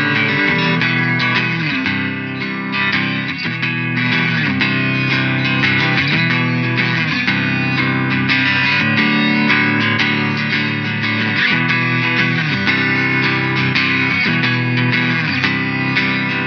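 Electric guitar, an LTD strat-style guitar played through a Line 6 POD HD500X amp modeller, playing a continuous melodic part with a pitch glide roughly every two seconds.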